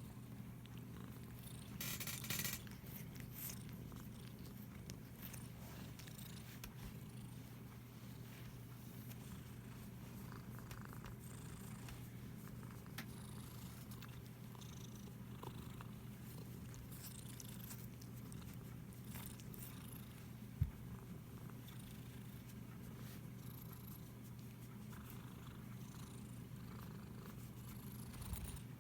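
Domestic cat purring steadily while being stroked. A brief burst of rustling comes about two seconds in, and a single sharp click about two-thirds of the way through.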